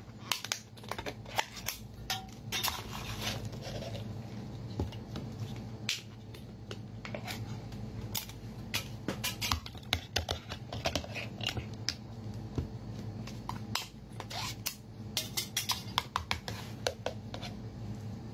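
A glass jar being handled and opened, then seafood in sauce tipped out of it onto a tray: many irregular clicks, clinks and knocks.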